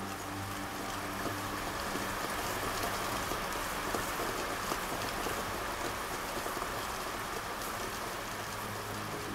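Steady rain falling on leaves: an even hiss with scattered drop ticks. A soft, sustained musical tone fades out in the first second or two.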